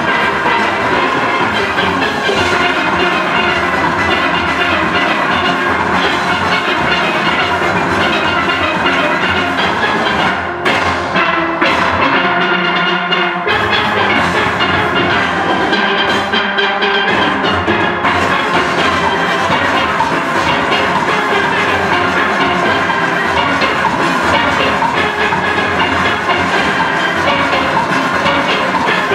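Full steel orchestra playing live: many steelpans ringing together in a fast, dense arrangement, driven by drums and percussion. The high cymbal-like shimmer drops back for a few seconds about a third of the way in, then returns.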